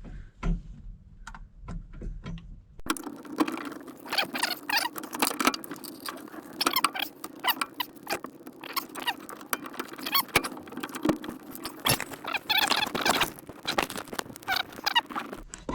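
Hand work on the VW Beetle's shift rod coupler and its bolt: a few separate metal clicks, then, about three seconds in, a sudden dense run of clicks and scrapes that stops abruptly near the end.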